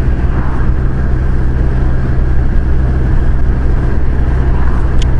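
Kawasaki Versys 1000's inline-four engine running steadily at cruising speed, with wind and road noise over a helmet-mounted microphone.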